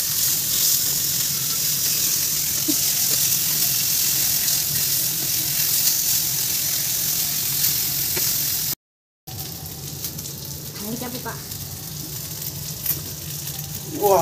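Fish pieces sizzling in shallow hot oil on a flat iron tawa, a steady high hiss. About nine seconds in it cuts out for a moment, then carries on fainter.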